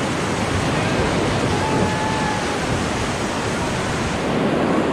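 Beas river whitewater rushing steadily, a loud even wash of rapids, with wind noise on the microphone.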